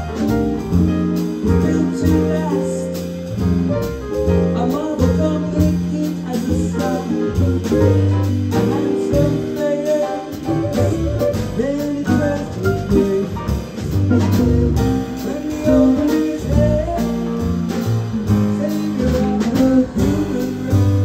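Live small-band jazz: a woman singing over archtop guitar, upright bass, piano and drum kit.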